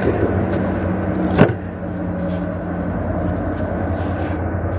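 Road traffic crossing the highway bridge overhead: a steady low drone, with one sharp click about a second and a half in.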